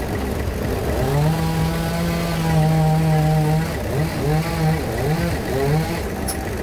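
Sawmill bandsaw machinery running. Its pitch rises and falls several times, then holds steady for about two and a half seconds from about a second in.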